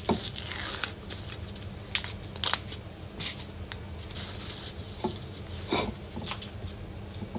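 Paper packaging crinkling and rustling as hands handle a round cake, in short irregular crackles.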